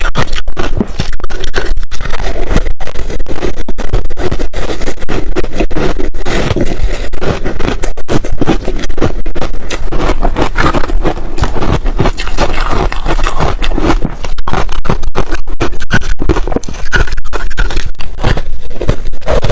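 Crunchy ice being bitten and chewed close to the microphone, a dense run of loud cracking crunches with only brief pauses between bites.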